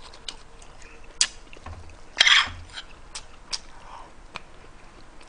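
Eating sounds: a metal spoon clicking against a ceramic bowl several times, with one louder, noisy sound a little over two seconds in.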